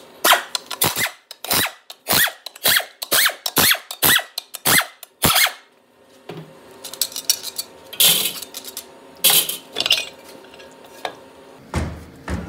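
About a dozen sharp metallic knocks, roughly two a second, each with a brief ring, as a 6L80 transmission's bellhousing is worked loose from the case. Then a few lighter clanks and clatter as the bellhousing and pump come off.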